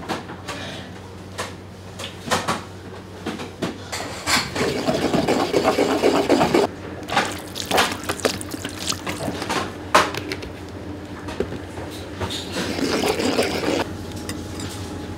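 Wooden pestle working a soft, wet paste of monkfish liver and miso in a ceramic suribachi: squishing and scraping, heaviest in a spell about four to seven seconds in, with scattered knocks of the utensils.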